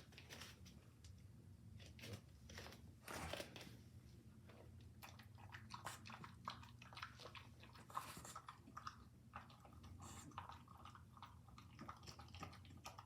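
French bulldog eating from its bowl: faint, irregular chewing and smacking, with many small crunchy clicks.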